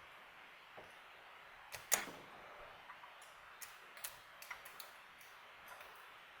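Sparrows Warlock rake working the pin stack of a Master Lock padlock: scattered small metallic clicks and scrapes as the pins are set. One sharper click comes about two seconds in, and a quicker run of clicks follows in the second half.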